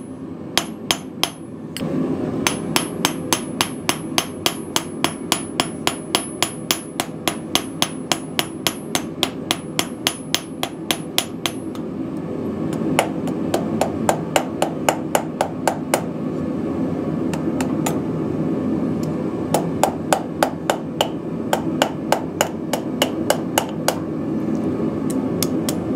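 Small blacksmith's hammer striking hot steel on a small hand-forged Viking-style stake anvil, rapid light blows about five a second, with a high ring off the anvil in the first half. The hammering pauses briefly twice, leaving a steady low rush beneath.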